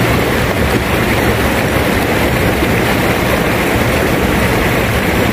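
Fast-flowing river water rushing through shallow rapids, a steady loud noise.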